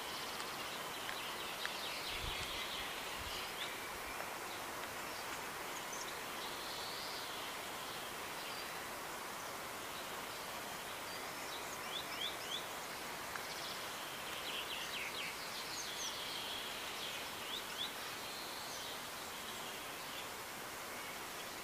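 Outdoor countryside ambience: a steady background hiss with small birds chirping now and then in short runs of quick high notes.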